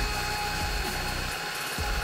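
Electric hand mixer running steadily, its twin beaters whisking eggs, sugar and oil to a fluffy batter in a glass bowl, with a steady motor whine.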